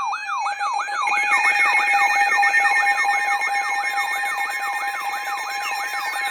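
Electronic siren yelping, each sweep falling quickly in pitch, about three to four sweeps a second, over steady alert tones; the steady high tones grow louder about a second in.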